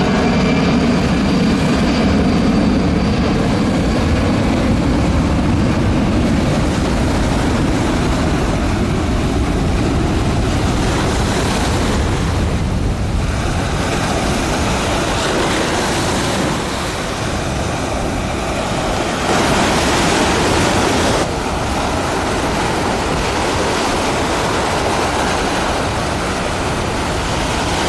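Boeing C-17 Globemaster III's four turbofan jet engines roaring past low, with a falling engine whine in the first few seconds, then a broad, steady rumble and rush that swells and dips. Wind on the microphone and surf are mixed in.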